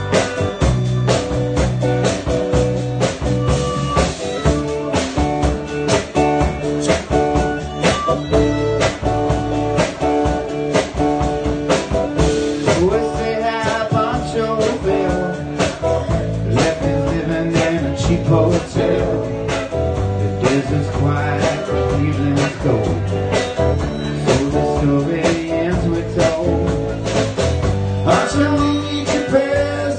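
Live blues band playing: a blues harmonica played into a vintage-style microphone over electric guitars, bass guitar and a drum kit.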